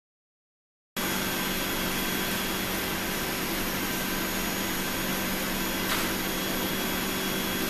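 After a second of silence, a cone calorimeter's exhaust blower runs steadily: an even rush of air with a low hum.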